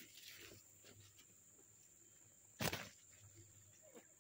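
Faint steady high-pitched insect drone, broken about two and a half seconds in by one short, sharp rustling thump in the grass where a freshly landed fish lies.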